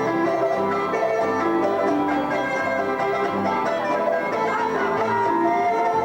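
Instrumental music with plucked strings and bowed string melody, notes changing quickly over a steady pulse.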